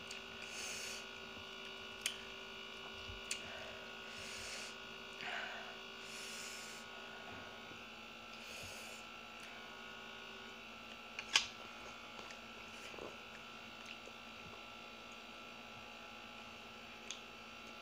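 A person eating grilled fish and rice by hand: soft chewing and mouth noises every second or two, with light taps on a plate and one sharp click about eleven seconds in, over a steady electrical buzz of several held tones.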